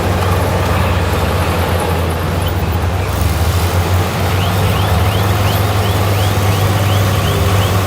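Bulldozer's diesel engine running steadily, with a short high squeak repeating about three times a second from about halfway in.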